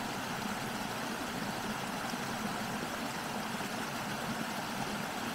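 A small stream of rainwater runoff pouring over stones, giving a steady, even rush of water that neither rises nor falls.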